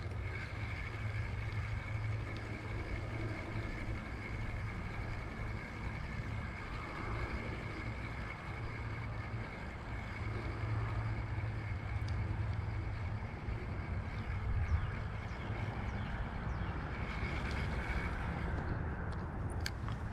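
Steady rumble of road traffic on a nearby bridge, continuous with no single event standing out.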